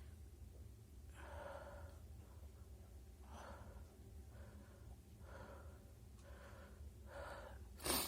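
A person taking about six faint, noisy breaths with a tickle in the nose, building toward a sneeze that doesn't come. Near the end there is one short, sharp burst of breath, the loudest sound.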